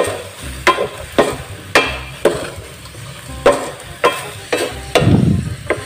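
Wooden spatula stirring small aballeng shellfish in a metal wok, scraping and knocking against the pan with the shells clattering, over a frying sizzle. There are about ten sharp strokes, roughly two a second, with a short pause midway.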